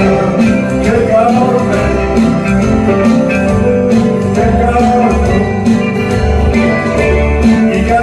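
Live band of acoustic and electric guitars with bass playing a song with a steady beat.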